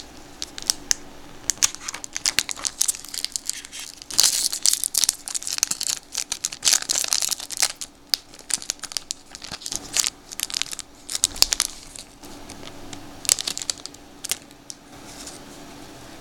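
Foil wax-pack wrapper of a 1992 Donruss baseball card pack being torn open and crinkled by hand: a run of sharp crackles and rips, busiest about four and again about seven seconds in, quieter near the end as the cards come out.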